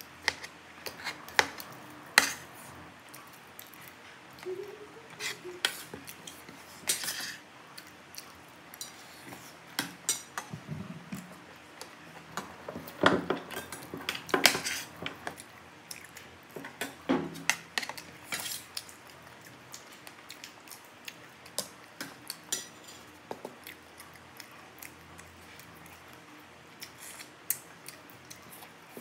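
Metal spoon and fork clinking and scraping against a ceramic plate while eating rice, in irregular sharp clicks that come thickest around the middle.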